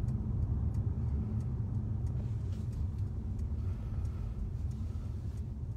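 Steady low rumble of a new Mercedes-Benz C-Class (1.5-litre four-cylinder) on the move, road and engine noise heard inside the cabin.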